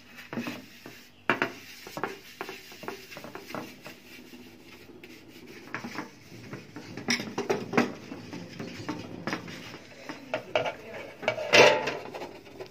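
A wad of cotton rubbed back and forth over a stainless steel tray to polish it, in irregular scrubbing strokes, with now and then a light metallic clatter of the tray, the loudest shortly before the end.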